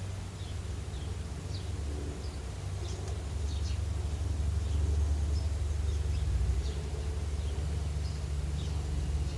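Outdoor ambience: a steady low rumble that swells a little midway, with many short, scattered bird chirps.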